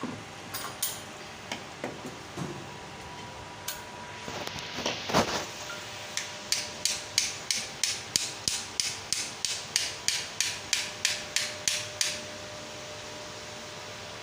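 Metal clicks and knocks from hand work on embroidery-machine parts during a pulley bearing replacement: a few scattered knocks and a louder scrape, then a run of about twenty sharp, evenly spaced clicks, roughly four a second, that stops a couple of seconds before the end.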